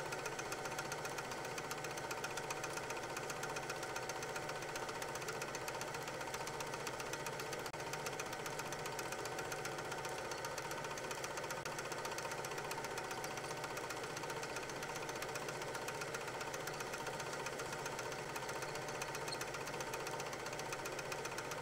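8 mm film projector running: a steady, fast mechanical clatter from the film-advance mechanism with a constant motor hum.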